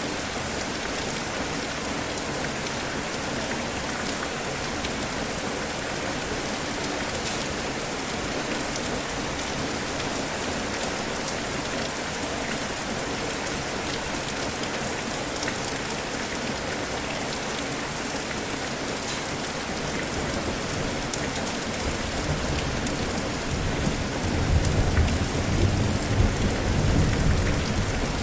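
Steady rain falling. A low rumble of thunder builds in about three-quarters of the way through and rolls loudest near the end.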